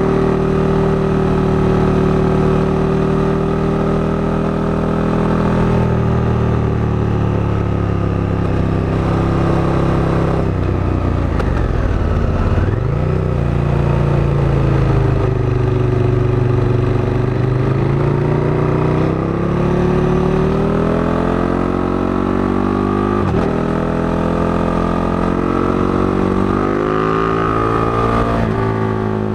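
KTM 1290 Super Duke GT's V-twin engine running under way. Its pitch holds steady for the first several seconds, sags about ten seconds in, then climbs steadily through the second half, with a brief drop and recovery near the end.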